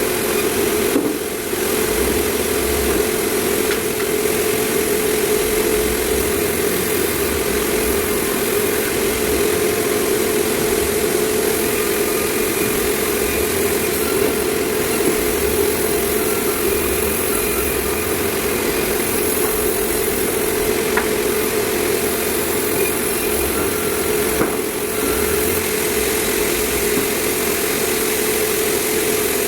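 Sawmill machinery running with a steady mechanical drone, dipping briefly twice.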